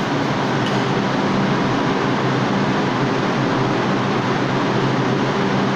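New York City subway train standing at a station platform with its doors closed, giving a steady hum and rush of equipment and air-conditioning noise. A faint click comes just under a second in.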